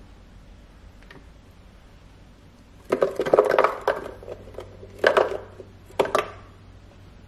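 Mango chunks dropped by hand into the plastic jar of a NutriBullet blender, knocking and clattering against the jar and the fruit already in it: a cluster of knocks about three seconds in, then two more single knocks about a second apart.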